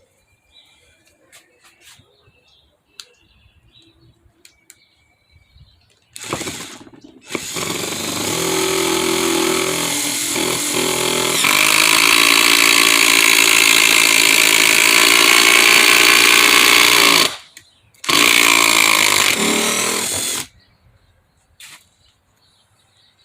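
Hercules 20V cordless impact driver hammering under load while boring a hole with a 1-inch spade bit. A short burst comes about six seconds in, then a run of about ten seconds that gets louder partway through. After a brief stop there is a final burst of about two seconds.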